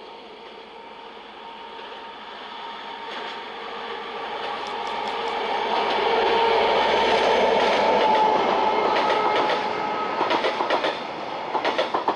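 ZSSK class 754 diesel locomotive hauling passenger coaches past: its engine drone grows louder as it approaches and is loudest about six to eight seconds in. Then the coaches' wheels clatter over the rail joints in quick clusters of clicks near the end.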